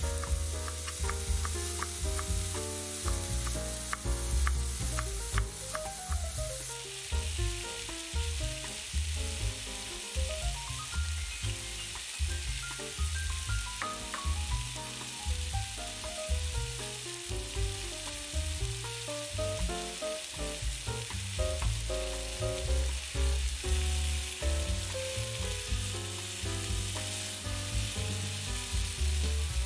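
Sliced zucchini and mushrooms sizzling in a frying pan as they are stirred. Over the first few seconds, a knife chops on a wooden cutting board, about two strokes a second.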